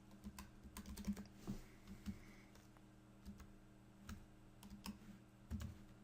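Faint, irregular clicks and taps of a computer keyboard being typed on, over a low steady hum.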